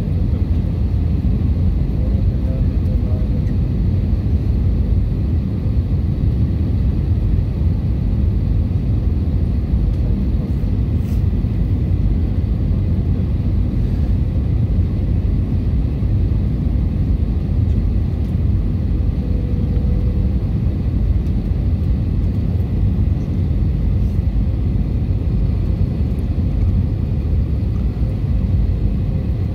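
Steady low rumble inside the passenger cabin of an Airbus A320-family airliner, from its jet engines and the airflow, as it descends on approach to land.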